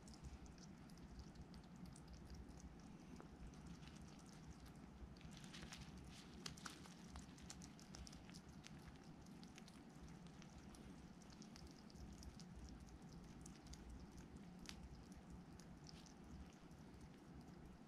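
Faint scattered clicks and crackles of a pet hedgehog eating mealworms and moving about, thickest about five to seven seconds in, over a low steady hum.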